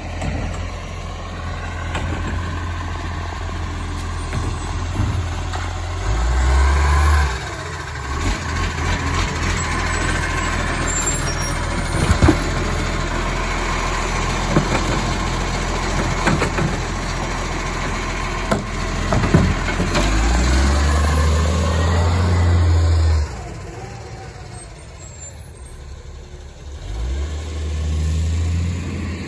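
Side-loading garbage truck engine running, speeding up twice as the hydraulic lift arm works, with sharp knocks and clatter in the middle as an Otto wheelie bin is lifted, tipped into the hopper and shaken empty. Near the end the engine drops away as the truck pulls off, then rises again.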